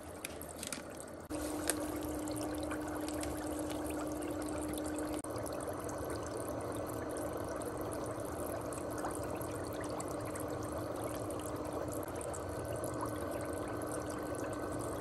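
Sharper Image Spahaven foot bath's bubble massage running: a steady motor hum under continuous bubbling water. It starts about a second in, after a few light clicks and splashes.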